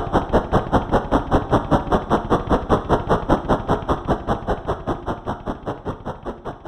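Model train running on its track: a steady clicking of about five strokes a second that grows gradually fainter.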